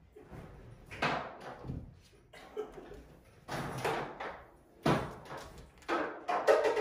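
Irregular knocks and thumps, about six in all, as a pet capuchin monkey scrambles over a pool table and pushes the billiard balls about.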